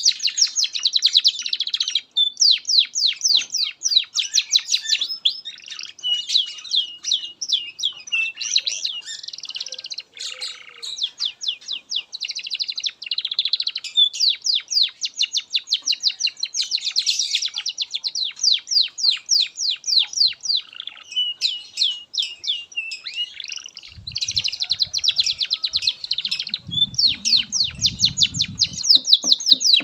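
Domestic canary singing a long, almost unbroken song of fast high trills and rolling runs of rapid repeated notes. A faint low rumble sits underneath for a few seconds near the end.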